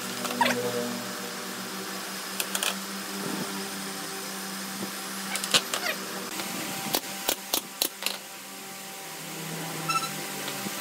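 Cordless drill driving screws into pine pallet boards: short whirring runs whose pitch rises and falls, with several sharp knocks of wood in the middle, over a steady low hum.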